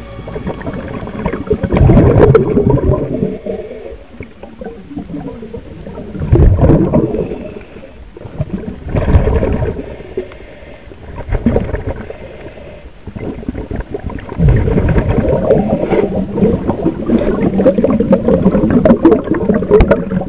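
Scuba diver breathing underwater, heard through an underwater camera: a gurgling burst of exhaled bubbles every few seconds, then near-continuous bubbling for the last several seconds.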